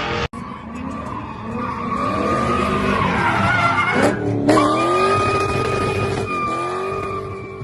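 A vehicle drifting: its engine revving up and down while the tyres squeal, with a long steady tyre squeal in the second half. The sound breaks off abruptly twice, at edits.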